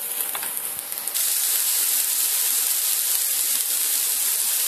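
Diced onion sizzling in a little oil in a frying pan, sautéing until it turns translucent, with a spatula clicking and scraping against the pan in the first second. About a second in, the sizzle becomes a steadier, louder hiss.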